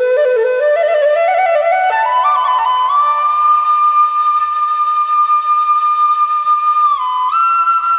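Background music: a solo flute melody that climbs in quick small steps, then holds one long high note and moves up to a new note near the end.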